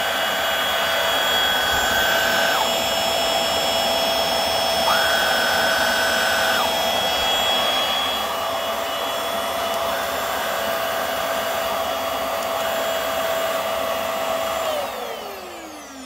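Hoover WindTunnel Air Steerable (UH72400) bagless upright vacuum running steadily, a motor whine with a higher tone that comes and goes a few times. Near the end it is switched off and the motor winds down in a falling pitch.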